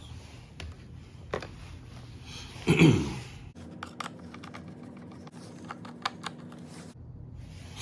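Plastic dashboard trim pieces of a Nissan 370Z clicking and knocking as they are pried loose and handled, in scattered sharp clicks, with one louder sound falling in pitch about three seconds in.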